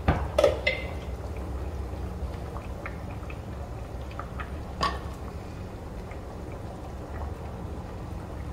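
Glass pot lid clinking as it is set down, then a pot of curry simmering with scattered faint pops over a steady low hum, and one sharp knock about five seconds in.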